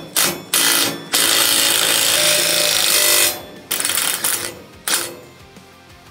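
Makita cordless impact driver with a socket driving the neck bolt through a minibike frame's neck tube, its impact mechanism hammering. It runs in a few short bursts, one longer run of about two seconds in the middle, then three more short bursts.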